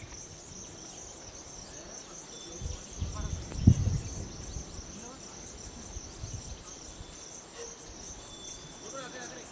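Insects chirping in a steady, high, rapidly pulsing drone. A brief low thump comes about three and a half seconds in.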